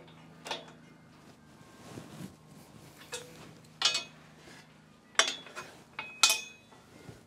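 Sharp metallic clinks and clanks, about half a dozen spread out, the loudest in the last two seconds with a brief metallic ring. They come from the steel folding ROPS of a Kubota B2601 tractor: its pivot bolts are being snugged with an adjustable wrench and the frame is then folded down.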